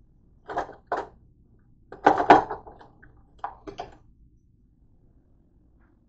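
Dishes and kitchenware clattering and knocking together as they are moved around in a dish drying rack: two short knocks, a longer, louder clatter about two seconds in, then two more knocks.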